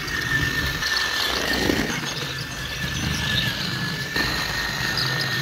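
Battery-powered Trackmaster toy train (Flip Face Talking James) running along plastic track: its small electric motor and gearbox give a steady high whine, with a few scattered clicks, running fast after a rewiring repair.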